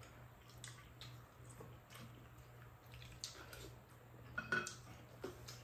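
Quiet eating at a table: faint clicks of spoons against bowls and wet mouth sounds of chewing, over a low steady hum.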